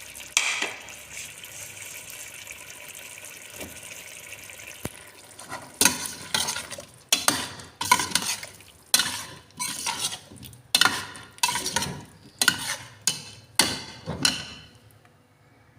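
Chopped potatoes in an onion-tomato masala sizzling in a pot, then a spoon stirring them in repeated scraping strokes, about one and a half a second, which stop near the end.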